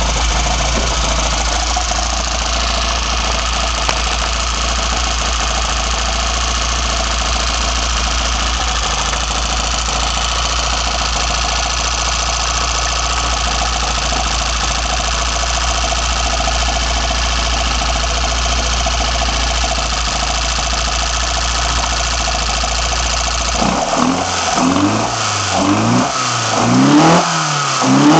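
BMW M10 four-cylinder engine breathing through sidedraft individual throttle bodies, idling steadily, then revved in a series of quick blips over the last few seconds, its pitch rising and falling with each.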